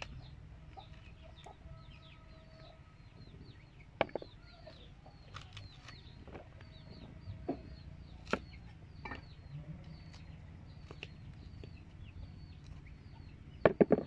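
Baby corn being husked by hand, with a few sharp snaps and rustles of the leaves, then a knife chopping quickly three or four times on a wooden block near the end, the loudest sounds. Birds chirp continually in the background.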